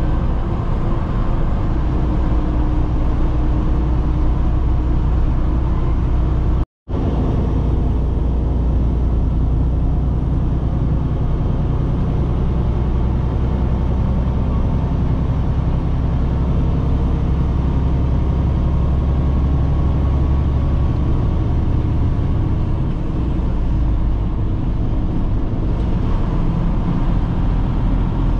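Steady low rumble of a semi truck cruising at highway speed, engine and tyre noise heard from inside the cab. It drops out to silence for an instant about seven seconds in.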